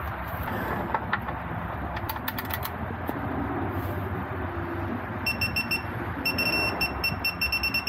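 Rapid high electronic beeping in short runs, several beeps a second, starting a little past halfway, over a steady background hiss. A few light clicks come earlier.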